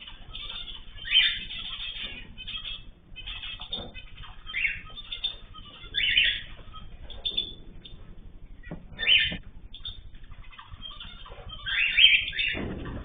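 Aviary of mixed cage birds (cockatiels, canaries, zebra finches and goldfinches) chirping and calling in short repeated bursts, the loudest call near the end.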